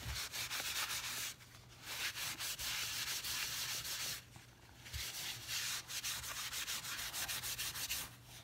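Paper towel rubbed briskly back and forth over a rusty steel double-bit axe head, wiping off penetrating solvent. The scratchy scrubbing comes in three spells of quick strokes, with short pauses about a second and a half and four and a half seconds in.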